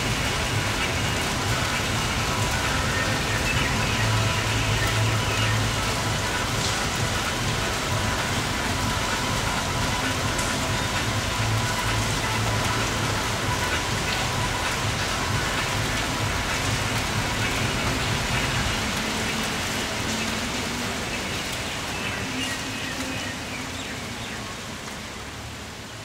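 Heavy rain falling steadily on trees and buildings, a dense even hiss that grows quieter over the last several seconds.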